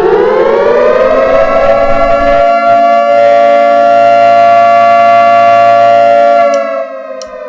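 Emergency warning siren winding up in pitch over about two seconds and holding a steady wail, then dropping away and starting to fall about six and a half seconds in.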